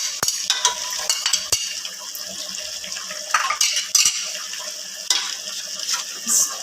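Chicken with garlic and spices sizzling in hot oil in a pressure cooker, while a metal spoon stirs and scrapes the pot, with sharp clinks and knocks against the metal.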